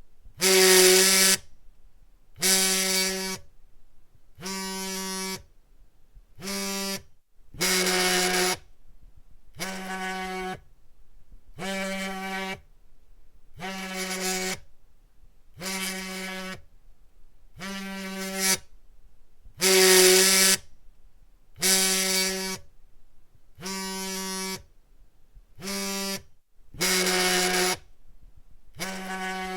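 Cell phone vibrating: a steady-pitched buzz about a second long, repeated roughly every two seconds, some buzzes louder than others.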